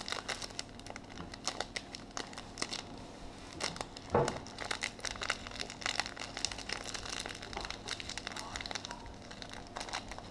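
A thin plastic bag crinkling irregularly as it is squeezed and shaken to empty spice mix into a bowl of breadcrumbs, with one louder crunch about four seconds in.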